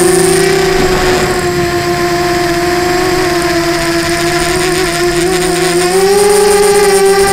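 Electric motors and propellers of an FPV model aircraft whining steadily as it cruises, picked up loud and close by its onboard camera; the pitch sags slightly and then steps up about six seconds in as the throttle is raised.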